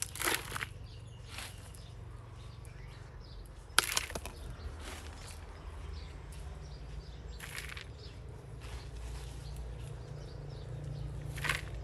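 Potting soil being tipped from a plastic container into a plastic flower pot. There are a few short rustling scrapes and one sharp knock a little before halfway, over a steady low rumble.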